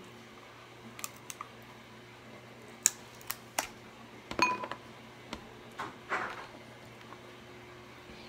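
Cooked snow crab leg shells cracking and snapping as they are broken apart by hand: irregular sharp cracks and clicks, with a longer crunch about six seconds in.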